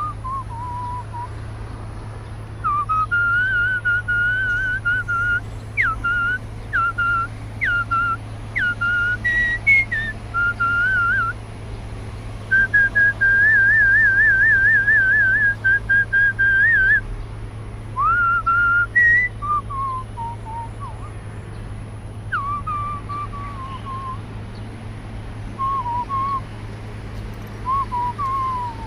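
Whistling a slow, wandering melody: held notes with short slides between them and a long warbling trill near the middle, over a steady low hum.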